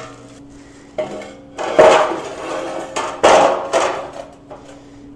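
Steel snow plow parts knocking and clanking together as they are fitted during assembly: a few sharp metallic knocks, the loudest two about two seconds and three seconds in.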